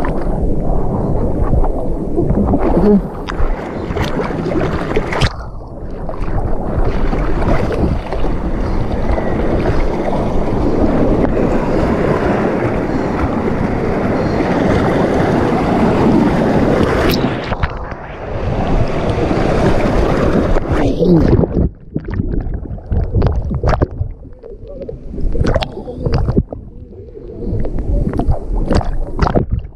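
Fast-flowing, churning water of a waterpark wildwater rapids channel heard right at the water surface, the rushing heavy and continuous, then after about twenty seconds breaking up into separate splashes and sloshes.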